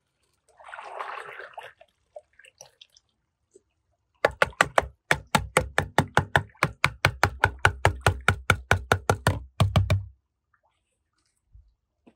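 A brief hiss, then rapid, even knocking, about six sharp knocks a second for roughly six seconds, stopping about ten seconds in.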